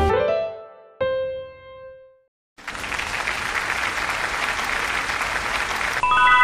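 Intro music: the last notes of a logo jingle ring out and fade, a single chime-like note sounds about a second in, and a brief silence follows. About three seconds of applause come next, and a bright, bell-like piano chord enters near the end.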